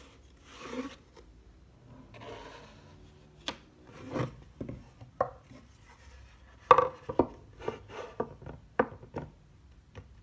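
A wooden cutting board and a wooden tray being handled on a tabletop: two soft sliding sounds, then a run of wooden knocks and taps as the tray is set down and settled, the loudest knock about two-thirds of the way in.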